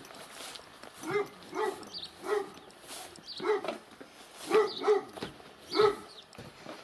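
A dog barking: a string of about eight short barks, unevenly spaced.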